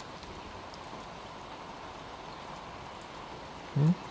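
Steady rain falling, an even hiss of drops on the ground and surfaces. Near the end, a brief voiced sound cuts in once.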